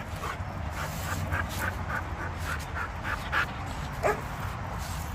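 Belgian Malinois whimpering in a run of short high whines, about three a second, then one louder whine that falls in pitch about four seconds in.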